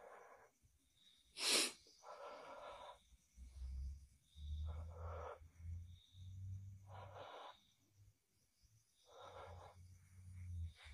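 Breathing close to the microphone, a breath about every two seconds, with one short sharp burst of noise about a second and a half in, the loudest sound. A low rumble runs under the later breaths.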